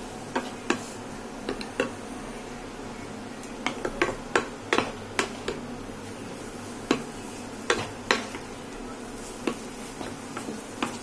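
A utensil clacking and scraping against a nonstick pan as noodles are tossed and stirred: irregular sharp knocks, thickest in the middle, over a steady hum.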